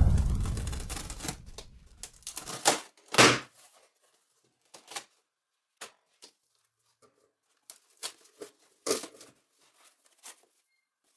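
A snap-off utility knife slitting packing tape along a cardboard box, the loudest sound, fading over about two seconds. Then scattered short knocks and cardboard rustles as the box flaps are opened and the packing handled.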